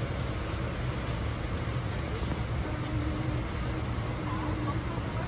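Steady rumble of a Boeing 777-200 airliner cabin's air-conditioning and ventilation at the gate during boarding, with faint passenger voices underneath.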